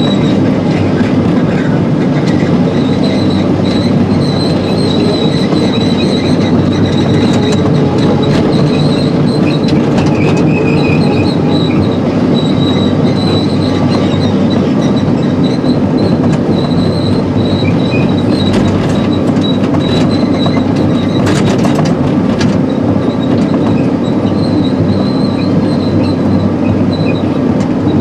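Crawler excavator travelling to pack down a rocky road: the diesel engine runs steadily under the high squeal and clanking of its steel tracks, heard from inside the cab.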